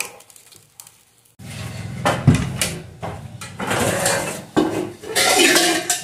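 Pots and metal kitchenware being handled, clattering with many sharp knocks and scrapes. The clatter starts about a second and a half in and lasts until near the end.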